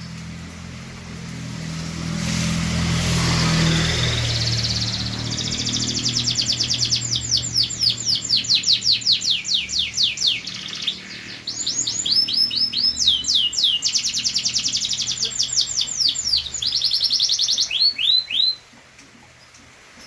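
Domestic canary singing: long rolling trills of fast, evenly repeated high notes, switching from one trill type to the next, then stopping abruptly near the end. A rushing noise swells in the first few seconds before the song begins.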